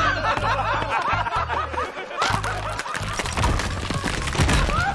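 Film soundtrack music with a steady low bass line, over several men laughing and yelling in quick short bursts.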